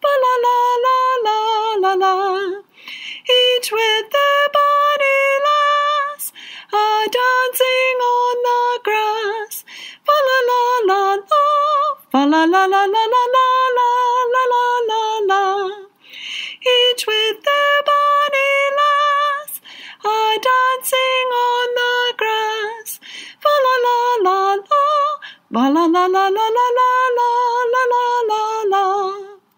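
A woman singing a song solo, one melodic line with vibrato, in phrases of a few seconds with short breaks for breath between them.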